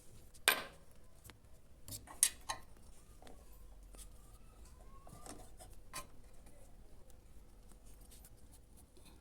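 Small metallic clicks and light scrapes of wire terminals being handled and fitted inside an unplugged microwave oven, with one sharp click about half a second in and a pair a little after two seconds.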